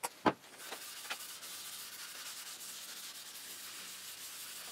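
Two short knocks, then a cloth rubbing a mineral oil and beeswax finish into a walnut cutting board: a steady, even rubbing hiss.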